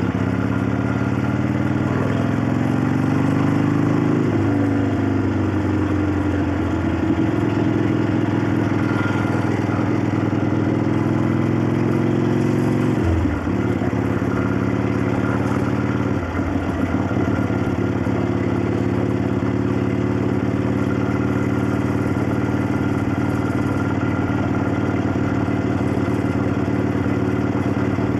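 1965 Harley-Davidson XLCH Sportster's 900 Ironhead V-twin running under way, with the clacking valvetrain typical of this engine. The engine note rises over the first few seconds as it accelerates, then holds steady. It dips briefly twice near the middle before settling into a steady cruise.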